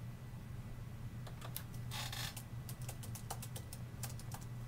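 Typing on a laptop keyboard: irregular keystroke clicks, with a short scratchy burst about two seconds in, over a steady low hum.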